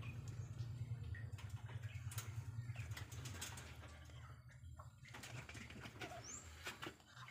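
Asian palm civet mother giving a low, steady growl over her newborn kits, fading after about four seconds, with a few faint clicks and a brief high chirp about six seconds in.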